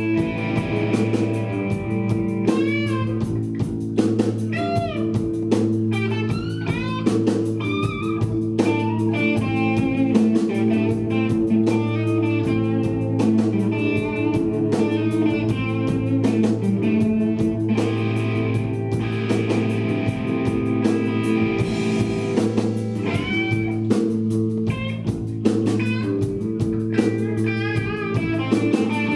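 Live blues-rock band: an electric guitar solo full of bent and wavering notes over a steady low bass drone and drums.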